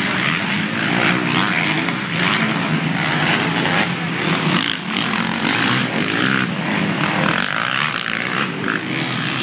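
Motocross dirt bike engines racing on the track, their buzzing pitch rising and falling as the riders rev through the course.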